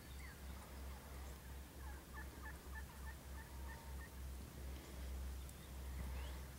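Wild turkeys calling: a run of short, quick, high notes about two seconds in, over a low rumble.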